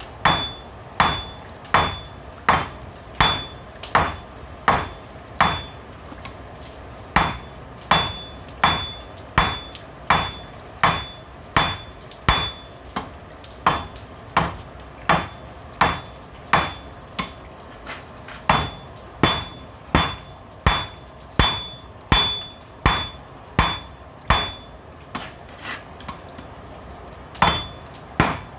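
Hand hammer forging a red-hot railroad spike on a steel anvil to flatten its end, with steady blows about two a second, each with a short ring from the anvil. The hammering stops briefly about six seconds in, and near the end there are a few lighter taps before the full blows resume.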